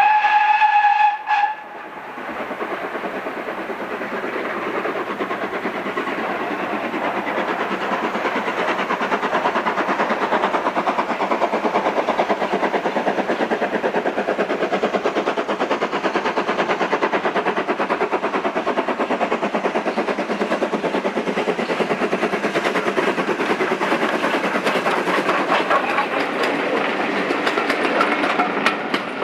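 BR Standard Class 2MT 2-6-0 steam locomotive: one steady whistle blast of about a second and a half at the start, then the engine working hard up a 1 in 76 gradient, growing louder as it approaches and passes. Near the end the coaches' wheels click rhythmically over the rail joints.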